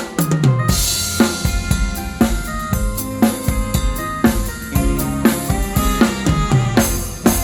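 Live band playing without vocals, the drum kit prominent: bass drum and snare hits with fills, over sustained keyboard or guitar notes, ending on a crash.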